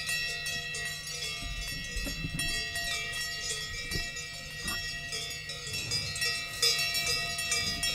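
Cowbells ringing irregularly: several bells of different pitches clanking together.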